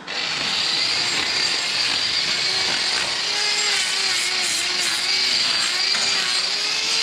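Power tool running steadily with a high whine, its lower tone wavering slightly as it works.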